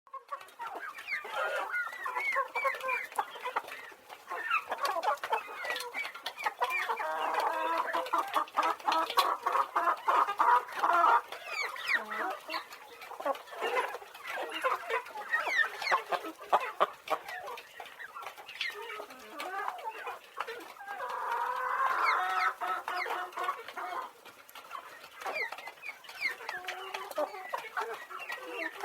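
A flock of farm chickens clucking and calling, many birds at once in overlapping short calls, with many short sharp clicks among them; the din swells louder at times and then eases.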